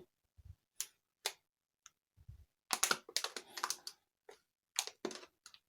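Light clicks and taps of plastic electric-fan gear assemblies being handled and fitted together, with a cluster of clicks about three seconds in and a few more near five seconds.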